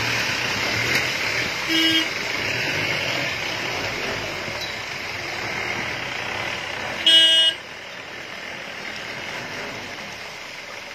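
Two short vehicle horn toots about five seconds apart, the second louder, over a steady rushing noise that eases off after the second toot.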